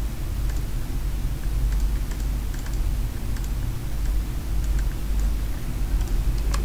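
Computer keyboard keys tapped in irregular clicks over a steady low hum.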